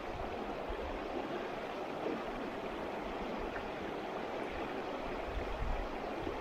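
River water flowing: a steady, even rush with no change.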